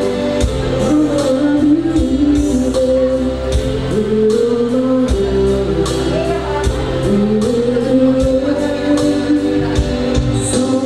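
A song playing, with a singing voice over held instrumental tones and a steady light percussion beat.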